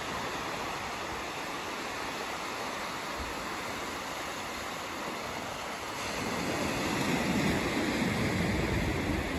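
Small ocean waves breaking and washing up a sandy beach: a steady hiss of surf that swells about two-thirds of the way through as a wave comes in.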